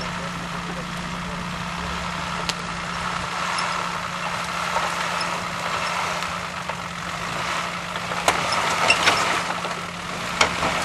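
Lifted off-road SUV's engine running steadily at low revs as it crawls over muddy, stump-strewn ground. A few sharp cracks or knocks come near the end.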